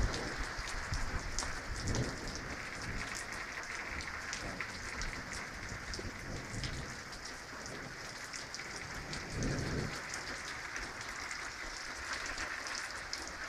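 Steady light rain falling, with individual drops ticking on a nearby surface. A brief low rumble comes about nine and a half seconds in.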